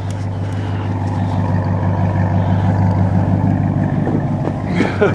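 A vehicle engine running steadily as it drives up close, a little louder in the middle and easing off toward the end.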